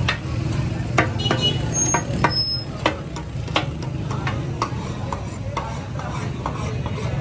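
Metal spatula scraping and striking a large flat iron tawa griddle as chicken fries in oil, giving uneven sharp clinks about twice a second over frying sizzle and a steady low rumble.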